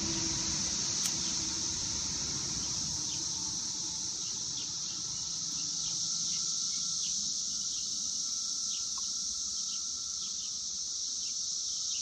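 Periodical (17-year) cicadas chorusing: a steady, high-pitched drone with short faint chirps scattered through it.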